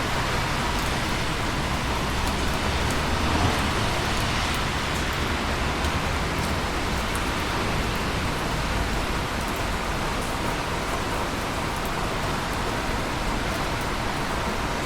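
Busy traffic on wet roads heard from a rooftop high above, in the rain: a steady hiss of tyres on wet tarmac and falling rain over a low rumble of engines. Scattered drips tick on concrete close by.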